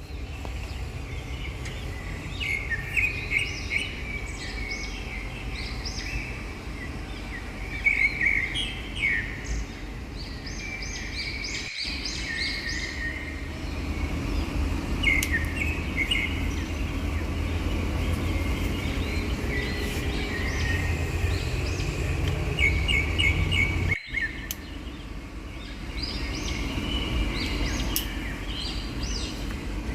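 Small birds chirping and twittering in repeated short bursts, over a steady low rumble. The sound cuts out briefly twice, a little before halfway and again later on.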